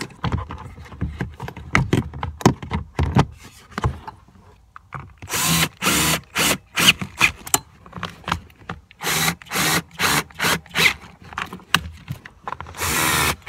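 Power driver running in short bursts, driving the mounting screws of a replacement car blower motor back in. Before that, clicks and knocks as the motor is fitted into its housing.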